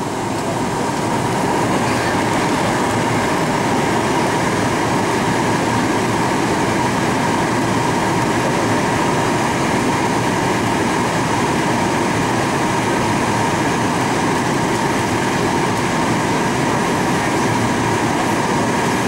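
Steady jet cabin noise of a Boeing 737-800 in flight, engine and airflow noise heard from a window seat, with a steady whine running through it. It grows a little louder in the first second or two, then holds level.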